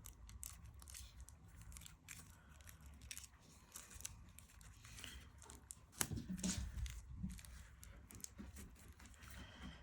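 Faint crinkling and picking at the plastic shrink-wrap around a deck of oracle cards, with scattered small clicks and a louder rustle about six seconds in.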